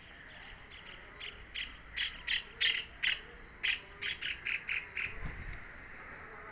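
Woodpecker calling: a series of a dozen or so sharp, high notes, about three a second, growing louder and then fading away.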